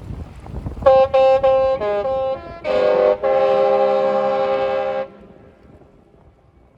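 The Disney Treasure cruise ship's musical horn playing a short tune: a run of quick notes, then a long held chord that stops about five seconds in. Wind on the microphone before it.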